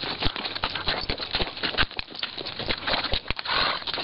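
Horses' hooves striking stony desert sand at a walk: uneven clops and clicks, several a second, with a short rush of noise about three and a half seconds in.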